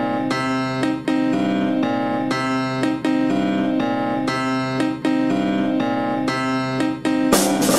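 Background music: a keyboard playing chords that change about once a second over a steady low note, with drums coming in near the end.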